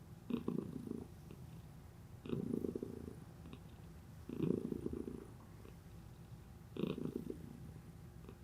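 Norwegian Forest cat purring close up, swelling louder four times at roughly two-second intervals over a softer continuous purr.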